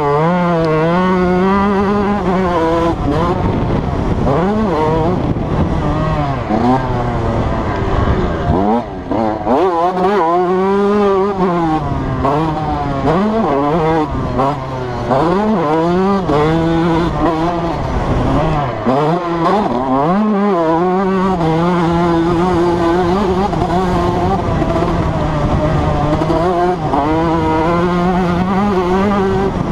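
Yamaha YZ125 two-stroke motocross engine ridden hard on a dirt track, revving up and falling off again and again as the throttle is opened and shut. It drops off deeply about 9, 15 and 19 seconds in, then holds a steadier high pitch over the last third.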